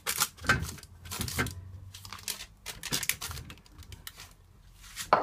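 Hand rubbing oil over a metal wire cooking rack: irregular light clicks and rattling of the wires under the palm, with a louder knock right at the end.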